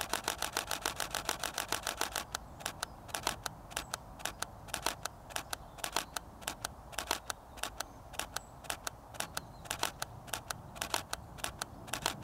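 Canon 80D DSLR shutter clicking over and over: a fast, unbroken run of clicks for about the first two seconds, then shorter irregular runs and single clicks.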